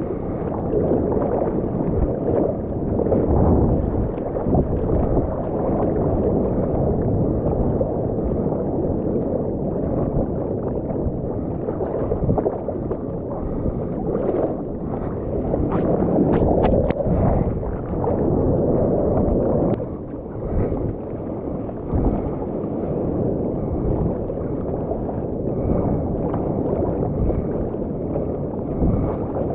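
Seawater sloshing and gurgling around a surfboard and against a GoPro's waterproof housing as a surfer paddles, hands stroking through the water. The sound is muffled, swelling and easing every few seconds.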